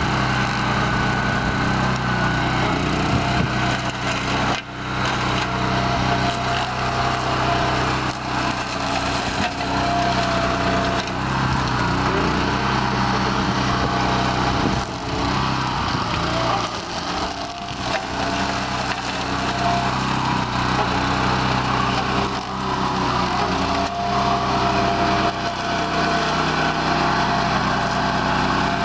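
A BCS 749 walk-behind tractor's 13 hp Honda gas engine runs under load while its Berta 26-inch flail mower chops through dry cornstalks and cowpea vines. The steady engine drone is mixed with the crackle of stalks being shredded, and the sound dips briefly a few times.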